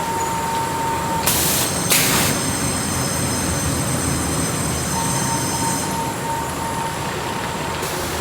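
Evaporative cooling pad production line machinery running steadily with a faint steady whine. Two short hisses come about one and two seconds in, and another just before the end.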